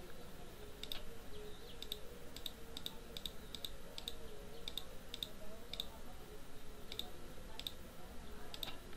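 Computer mouse clicking about a dozen times at an irregular pace, each click selecting one more curve in a CAD program, over a faint steady background hum.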